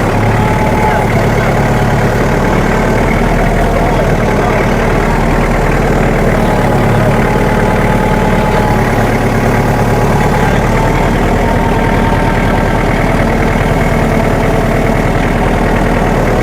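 Engine idling steadily close by, a continuous low rumble with an even firing beat.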